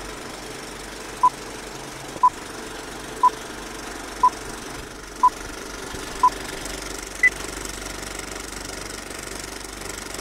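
Film countdown leader sound effect: an old film projector's steady clatter with a short beep once a second, six beeps at one pitch, then a single higher beep about seven seconds in.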